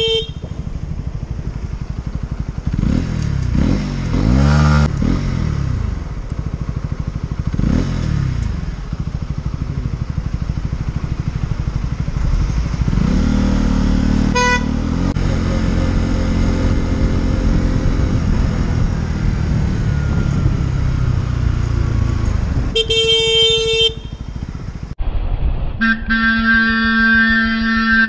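Motorcycle engine revving up and down a few times, then running steadily under way. Near the end a horn sounds for about a second, then again in a longer blast a couple of seconds later.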